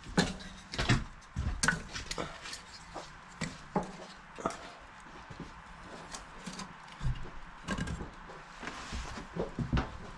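Split kindling sticks knocking against one another and against the cast-iron firebox of a Jotul F100 wood stove as they are laid on hot coals: scattered wooden clunks, busiest in the first two seconds.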